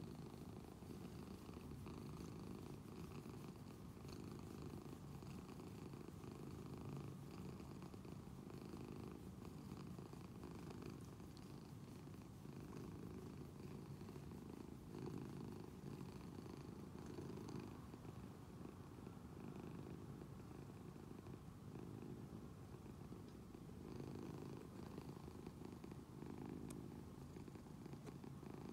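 A domestic cat purring steadily, with gentle swells, as it lies on its back being stroked on the belly, a sign of a relaxed, content cat.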